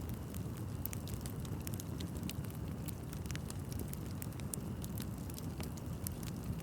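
Wood bonfire burning, with many sharp, irregular crackles and pops over a steady low rumble of the flames.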